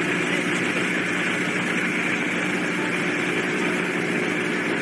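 Steady engine drone, a low hum with a few constant tones under a hiss, running evenly without change.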